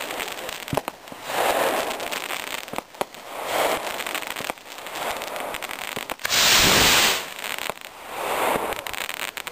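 Black-powder skyrockets launching: a loud rushing whoosh lasting under a second about six and a half seconds in, with several fainter swelling rushes and scattered sharp pops and crackles around it.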